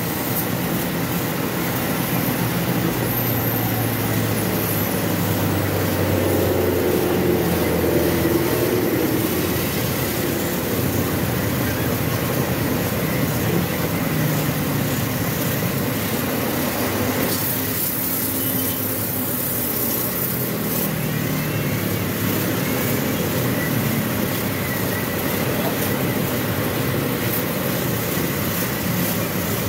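Steady roar of a blowtorch flame heating a soldering iron for radiator soldering, over a low droning hum that shifts in pitch a few times.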